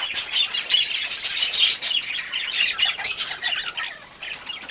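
A flock of small pet parrots in an aviary chirping and chattering over one another: a dense, unbroken stream of short high calls, easing a little near the end.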